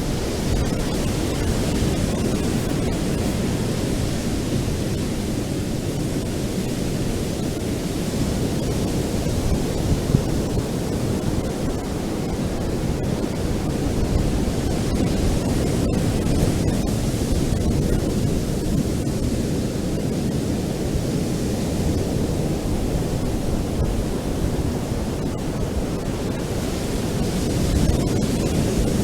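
Ocean surf washing on a beach: a steady low rushing that swells and eases slowly, with one short tap about ten seconds in.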